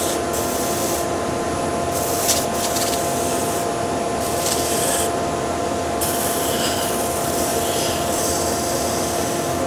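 A soft-backed 240-grit power sanding disc spinning on the lathe while a small carved wooden piece is pressed and turned against it, taking the facets off and rounding it over. The motor hums steadily and the abrasive rasps on the wood, the hiss swelling and easing as the piece is pressed on and moved.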